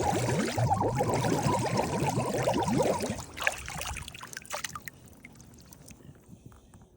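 Canned air horn blasting underwater: a loud, dense gurgling rush of escaping gas that cuts off about three seconds in, leaving faint fizzing and crackles that die away.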